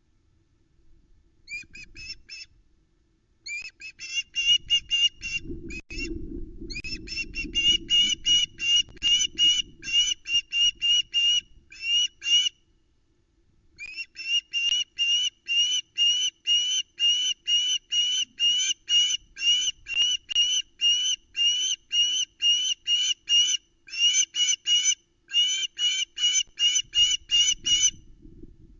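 Juvenile osprey calling in long bouts of short, high, slightly rising whistled chips, about three a second, with brief pauses between bouts. A low rumble sounds under the calls for a few seconds near the start.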